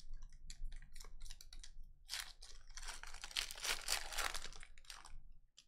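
Foil wrapper of a 2020 Select Football hobby pack being torn open and crumpled by hand. Scattered crackles build to a dense stretch of tearing and crinkling in the middle, then stop just before the end.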